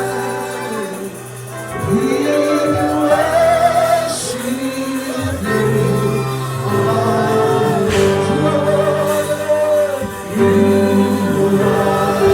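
Gospel music: several voices singing together over instrumental backing, with long held notes.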